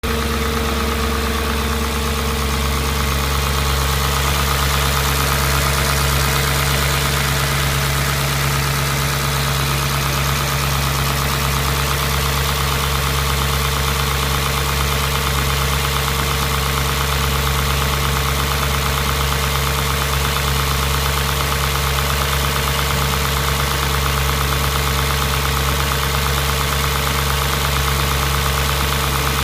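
Audi S4 B6's 4.2-litre V8 engine running steadily at idle.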